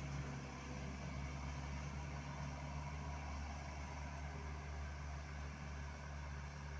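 Diesel engine of a light dump truck running steadily on the road, a low, even hum.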